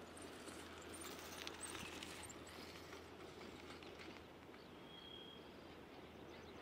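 Faint outdoor ambience with a low steady hum. A patch of soft clicking and rustling comes between about one and two and a half seconds in, and a single brief high chirp about five seconds in.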